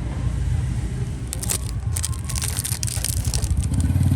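A couple of seconds of dense crackling, crinkling noise over a steady low rumble of road traffic; near the end a motor vehicle engine grows louder.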